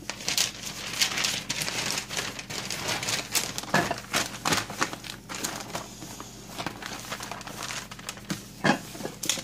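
Newspaper rustling and crinkling as it is handled, with many irregular small crackles.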